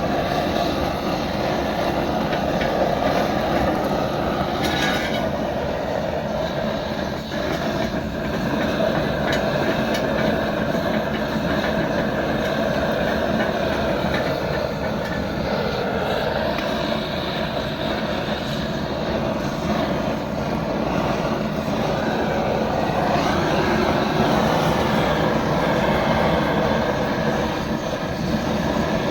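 A machine running steadily: a dense, even noise without breaks, with a few faint ticks.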